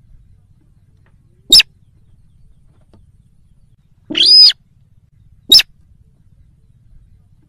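Slaty-breasted rail calls from a hunting lure recording: a short sharp note about one and a half seconds in, then a longer, arching call around four seconds, then another short sharp note about a second later.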